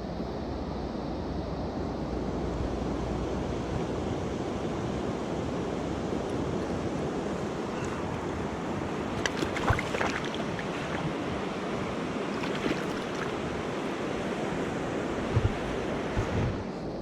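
Steady rush of a mountain stream's flowing water, with a few short clicks and knocks about halfway through and again near the end.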